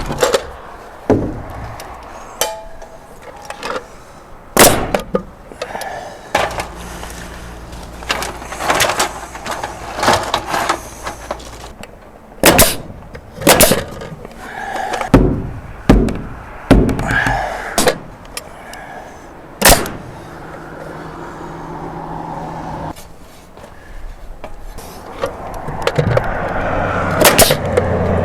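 Carpentry work on wooden soffit boards: irregular sharp knocks and bangs of boards being handled and fastened. A low steady hum runs under it for two stretches, in the first half and near the end.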